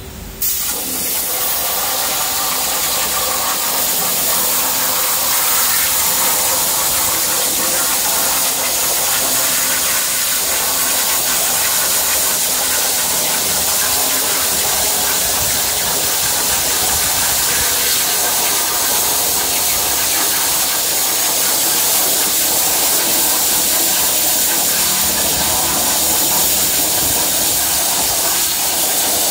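CNC plasma cutting torch striking its arc about half a second in, then a loud, steady hiss as it cuts through steel plate.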